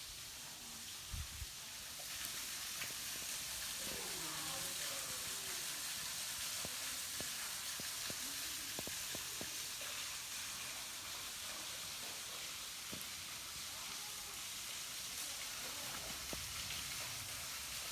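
Steady hiss of a waterfall splashing down, with a few faint scattered clicks.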